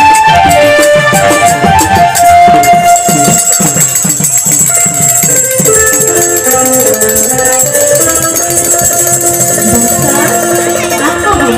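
Traditional Assamese music: small brass hand cymbals ringing over a melody of held notes, with quick percussion strokes in the first few seconds.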